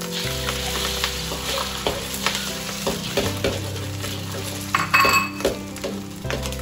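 Beaten-free whole eggs poured into hot oil in a wok, sizzling on contact, then a metal spatula scraping and clinking on the wok as the eggs are broken up, with the loudest scrape about five seconds in. Soft background music with held notes runs underneath.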